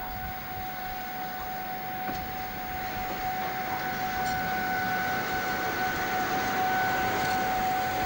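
Electric locomotive passing slowly at the head of a heavy freight train: a steady high whine with a second, higher tone above it, over a rumble of wheels on rails that grows louder.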